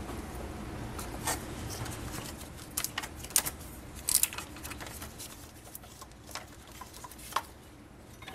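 Scattered light clicks and taps of hands and tools working a drive belt off an engine's pulleys, with a few sharper clicks among quieter handling noise.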